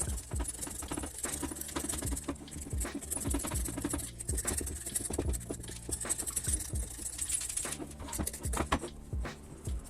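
Hand tools working on metal bicycle parts: a rapid, irregular run of clicks, taps and scraping, over a steady low hum.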